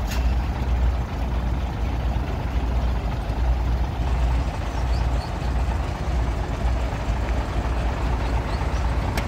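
Heavy truck's diesel engine idling with a steady low rumble.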